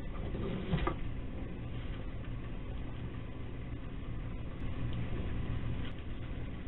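Steady low hum in the background, with a brief scrabbling knock about a second in as a possum climbs down off a wooden feeder box on the porch.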